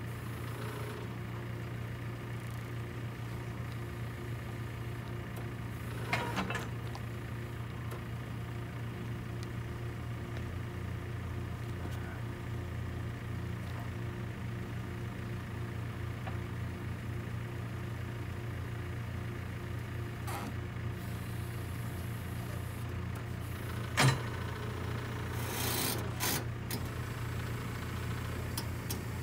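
JCB telehandler's diesel engine idling steadily while its forks handle a freshly sawn cedar slab. Wood knocks against wood about six seconds in, and again more loudly about 24 seconds in, followed by some scraping as the slab shifts on the log.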